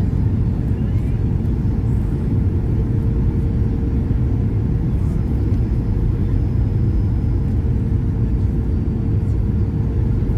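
Steady, loud cabin roar of a Boeing 737-800 (737-8H4) on approach, heard from inside the passenger cabin: airflow and CFM56-7B engine noise, with a steady hum running underneath.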